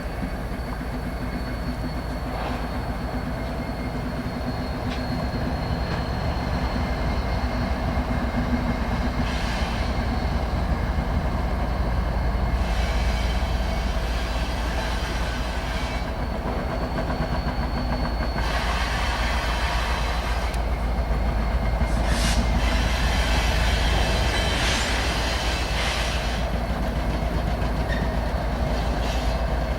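An oil train of tank cars rolling past, a steady rumble and clatter of wheels on the rails that slowly grows louder. Thin high squealing tones come and go, brightest in the second half.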